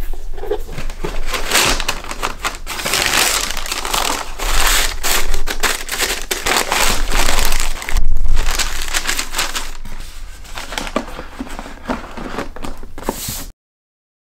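Tissue paper crinkling and rustling as hands fold it over a sneaker in its cardboard shoebox, rising and falling irregularly, and cutting off abruptly near the end.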